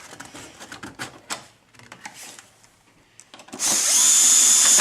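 Light clicks and handling of parts, then, near the end, a Bosch 9.6-volt cordless screwdriver (not an impact driver) runs for just over a second with a steady, high whine as it drives a T30 screw down.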